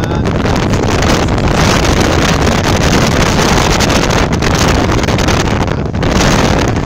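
Wind rushing over the microphone of a moving vehicle, with steady engine and tyre noise from driving on a dirt road.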